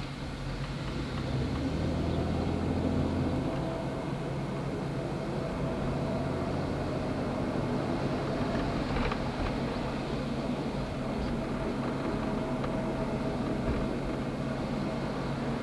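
Steady low rumble and hum of a moving vehicle heard from on board, growing a little louder over the first two seconds, with a faint whine for a few seconds and a single click about nine seconds in.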